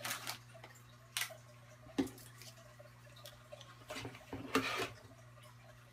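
A few brief, soft rustles and clicks from handling, over a steady low hum.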